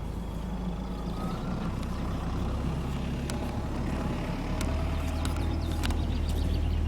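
Motor vehicle engine running steadily, its note shifting to a steadier, stronger hum about four seconds in, with a few light knocks and rattles.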